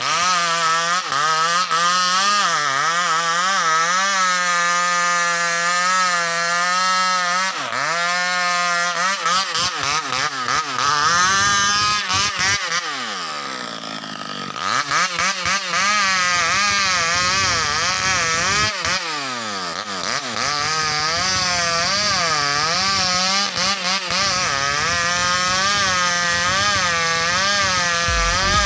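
Two-stroke chainsaw cutting into the trunk of a large tamarind tree: the engine runs at high speed, its pitch wavering as the chain bites and bogs in the wood. About halfway through it drops briefly toward idle, then revs back up and carries on cutting.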